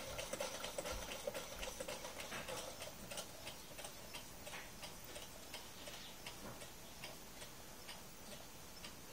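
Homemade Stirling engine running, its mechanism ticking a few times a second. The ticks grow fainter and slower as the engine slows.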